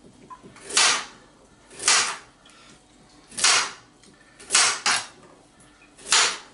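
Kitchen knife chopping through raw carrot onto a chopping board: six separate cuts, each a short, sharp chop, about a second or more apart, with two in quick succession near the middle.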